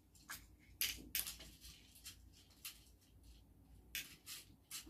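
Wooden chopsticks tapping and scraping against small dishes while beans are picked up one at a time: scattered light, irregular clicks.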